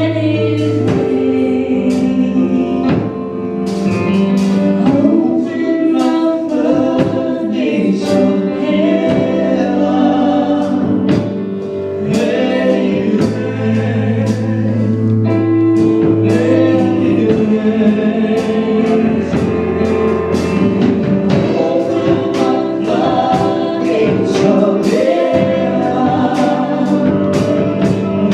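Gospel praise team singing together over sustained keyboard or organ chords, bass and drums.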